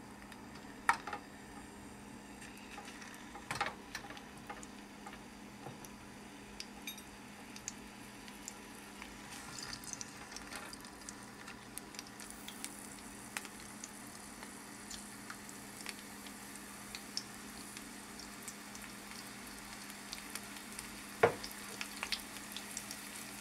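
Red bell pepper rings frying in hot vegetable oil in a nonstick pan: a light sizzle with scattered crackles that grows into a fuller hiss about halfway through as the oil heats around them. A few sharp knocks come as rings are set down in the pan, over a steady low hum.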